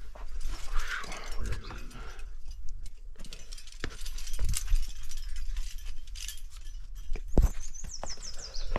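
Climbing gear clinking and jingling on a climber's harness, with scattered sharp clicks and scuffs of hands and shoes on sandstone; a quick run of metallic jingles near the end.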